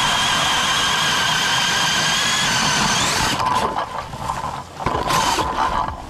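Cordless drill turning a Strikemaster Lite Flite ice auger, boring a hole through lake ice: a steady high whine that turns rougher about three seconds in and stops just before five seconds, then a short second run near the end.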